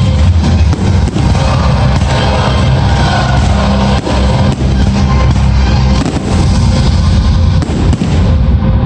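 Fireworks going off in many sharp cracks and bangs over loud music with chords that change every couple of seconds.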